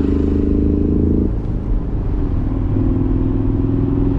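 2022 Ford Mustang EcoBoost's turbocharged four-cylinder running under way, heard together with the artificial engine sound that Sport Plus mode pumps through the cabin speakers. About a second in, the upper part of the engine note drops away suddenly, and it then settles into a lower, steady hum.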